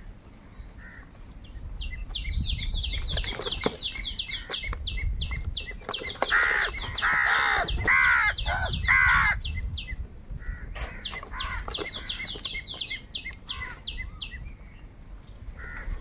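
House crows cawing, with about four loud harsh caws in the middle. Before and after the caws, a fast run of short high chirps repeats several times a second.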